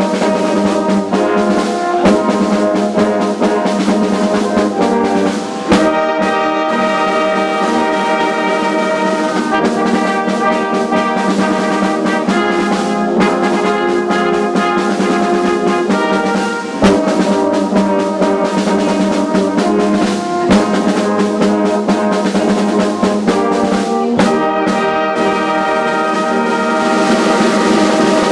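Brass music: a slow piece of sustained brass chords that change every few seconds.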